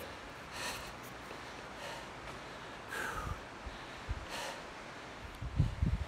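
A man breathing heavily from the exertion of climbing, four deep breaths about a second and a half apart. Wind starts buffeting the microphone near the end.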